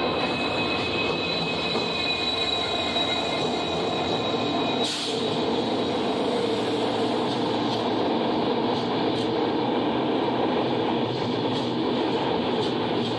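Indian Railways EMD WDP4D diesel locomotive, with its two-stroke EMD 710 engine, passing close by, with a high steady whine over the first few seconds. Its coaches then roll past with a steady rumble of wheels on the rails.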